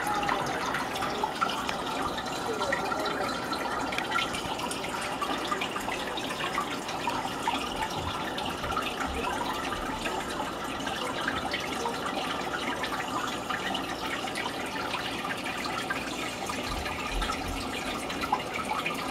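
Water trickling and bubbling steadily, a continuous wash of small splashes with no single event standing out.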